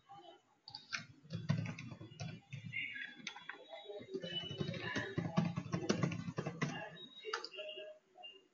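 Computer keyboard typing: a quick run of keystrokes for several seconds, stopping near the end.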